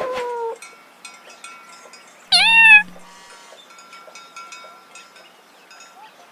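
Domestic cat meowing: a falling meow tails off at the start, then one loud, high meow rises and falls about two seconds in.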